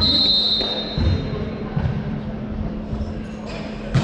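Referee's whistle blown once, a steady high tone that trails off over about a second and a half, over the general noise of a sports hall. A thump comes about a second in and another near the end.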